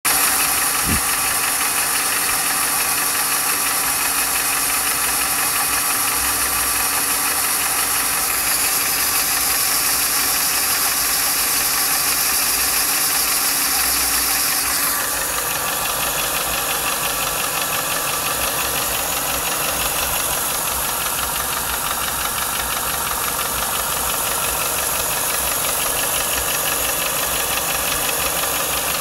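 Ford 4.6 DOHC V8 of a 1995 Lincoln Mark VIII running steadily with a rapid, regular tapping-knocking. The owner can't tell whether it is lash adjuster tick or piston slap or rod knock. The tone of the sound shifts about eight and again about fifteen seconds in.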